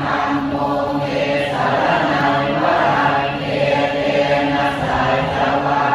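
Many voices chanting Pali Buddhist protective verses in unison, a continuous recitation on steady, level pitches.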